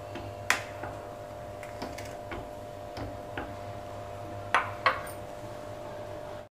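Steel ladle clinking against a stainless steel cooking pot while a watery rice-and-chickpea mixture is stirred: a few sharp clinks, one about half a second in and two close together near the end, over a steady hum.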